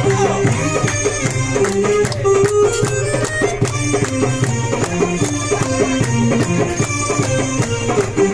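Live Egyptian belly-dance music: an electronic keyboard playing a held, ornamented Middle Eastern melody over a quick, steady beat of hand percussion including a frame drum.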